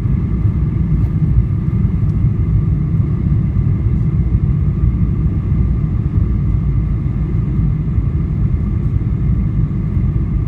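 Steady low rumble of a Boeing 737-900ER in flight on approach, heard from inside the cabin: engine and airflow noise with a faint steady hum of higher tones, unbroken throughout.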